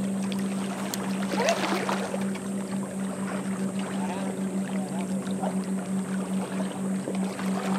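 A motorboat engine drones steadily with a low hum, which wavers several times a second in the second half.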